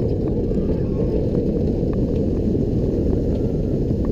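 Loud, steady rumble of wind and track noise on a rider's camera as a roller coaster runs at speed.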